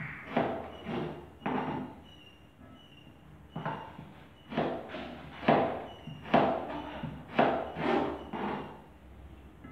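Kitchen knife chopping carrot on a cutting board: about a dozen sharp knocks at an uneven pace. There is a pause of about two seconds after the first three.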